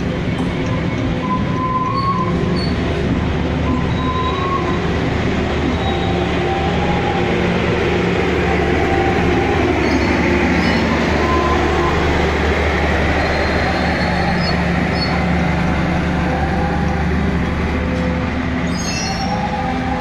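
Passenger train coaches rolling past as the train pulls out of the station: a steady rumble of wheels on rail with a few short, high squeals. The rumble swells about halfway through and eases as the last coach draws away.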